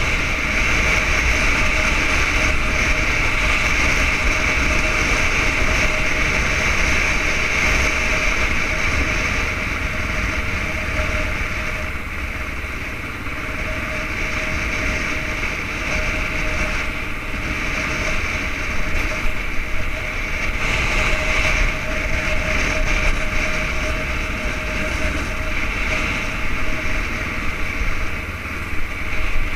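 Yamaha XTZ 600 Ténéré's single-cylinder four-stroke engine running steadily at road speed, mixed with a constant rush of wind over the helmet-mounted camera. The level dips briefly about thirteen seconds in.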